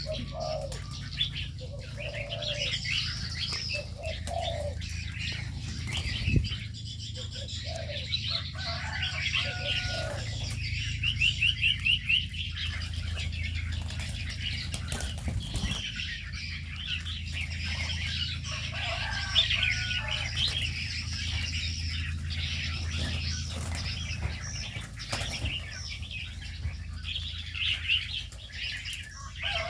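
A mix of aviary birds chirping and trilling continuously, with wings flapping now and then, over a steady low hum.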